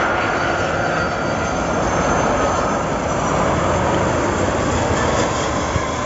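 Airbus A330-243 MRTT's twin Rolls-Royce Trent 700 turbofans as the tanker passes low on its landing: a loud, steady jet rush with a whine that slides slightly lower in pitch.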